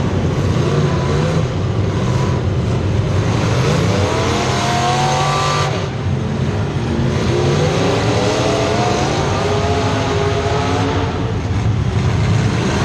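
Race car engines running at speed, revving up in a long rising pitch, cutting off sharply, then rising again as the cars accelerate once more.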